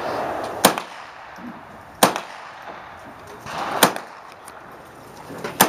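Four single shots from a Smith & Wesson M&P 15-22 semi-automatic .22 LR rifle, fired slowly, about one and a half to two seconds apart.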